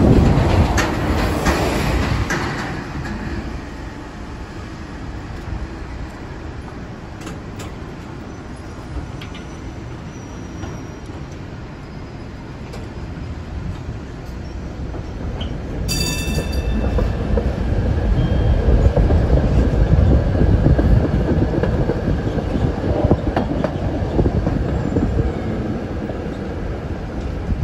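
Heritage streetcar running along street rails, heard from aboard: a steady rumble of wheels on track that grows louder in the second half. A city bus passes close alongside at the start, and a short high ring sounds about two thirds of the way through.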